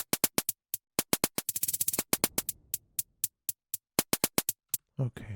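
Drum-machine hi-hat pattern from Native Instruments Maschine played on its own: quick, even ticks with a fast roll about one and a half seconds in, stopping shortly before the end.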